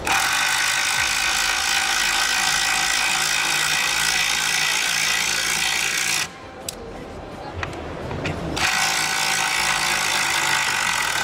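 Cordless impact driver running under load, driving a long screw into stacked pine boards. It runs in two goes: about six seconds, a short pause, then about three seconds more.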